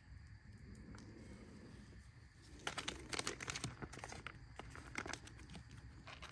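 Plastic rice pouch crinkling as it is handled and opened: a dense run of crackles about two and a half seconds in, then scattered crinkles.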